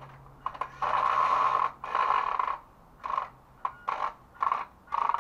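WPL B-1 1/16-scale RC military truck's electric motor and gearbox whirring in bursts of throttle as it crawls up steps: two longer pushes, then a quick string of short blips. Under load the drivetrain clicks, which the driver takes to be coming from the back of the truck.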